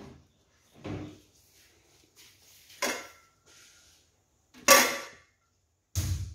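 Stainless steel cooking pot and its lid being handled: a few separate metal clanks and knocks, the loudest about three-quarters of the way through, one followed by a short metallic ring, and a dull thump near the end.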